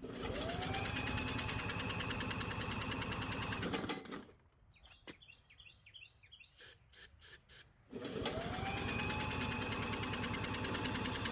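A drill spins a walk-behind lawn mower engine over by its flywheel nut, twice, each run about four seconds long. Each run is a whine that rises and then holds steady over rapid even pulses from the engine turning over. The engine does not catch, even with starting fluid sprayed in.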